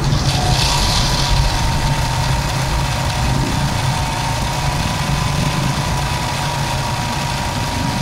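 Simaru SM-20U73 industrial zigzag sewing machine running steadily, stitching a preset decorative zigzag pattern into fabric: an even mechanical hum with a thin steady tone above it.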